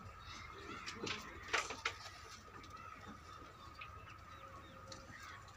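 Faint bird chirps over a steady high-pitched hum, with two sharp knocks about a second and a half in.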